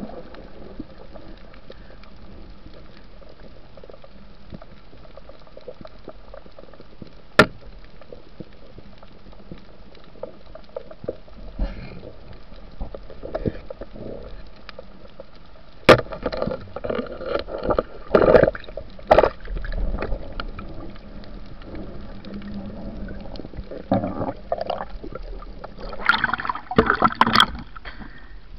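Underwater water noise during a night spearfishing dive: a steady hiss, a sharp click about seven seconds in and a sharp knock just past halfway. Irregular bursts of splashing and bubbling follow, busiest near the end as the diver comes to the surface with a speared fish.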